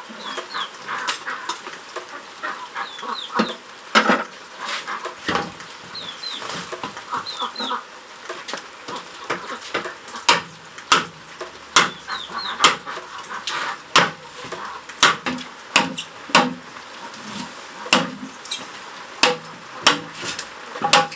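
Chickens clucking, with short high peeps, over a run of sharp knocks that come about one or two a second in the second half.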